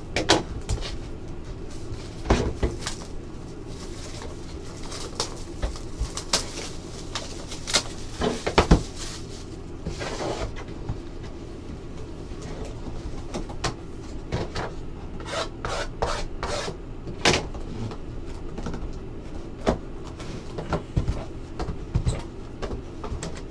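Shrink-wrapped Topps Museum Collection hobby box being unwrapped and opened: plastic wrap crinkling and peeling off, then cardboard box and mini boxes tapping and sliding under the hands, in scattered short clicks and rustles.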